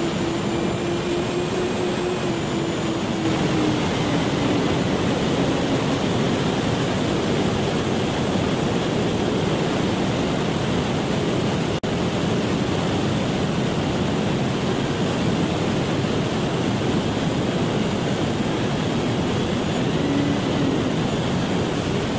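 Electric motor and propeller of a Finwing FPV plane in flight, heard through its onboard camera: a steady rushing of wind with a faint motor whine whose pitch sags a little over the first few seconds. The sound drops out for an instant near the middle.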